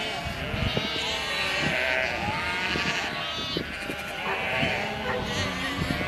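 A flock of sheep bleating, several animals calling over one another at different pitches.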